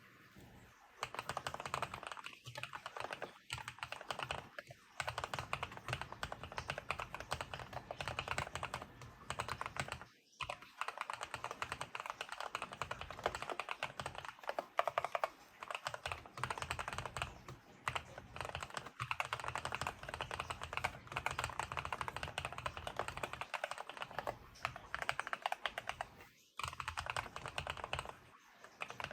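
Fast continuous typing on a Monsgeek M5 full-size mechanical keyboard, a dense run of key clacks with short breaks about ten seconds in and near the end. The case is taped, with the stock foam replaced by compressed Thinsulate for a muted, dampened sound.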